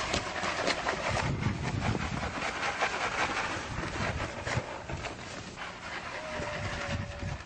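A large herd of rabbits scampering over pavement around a running person: a dense patter of many quick taps over irregular dull thuds of footsteps.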